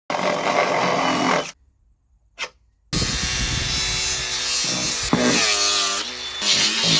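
A power tool working against wood, in two runs split by about a second and a half of near silence with one short noise in it; in the second run its pitch dips and rises.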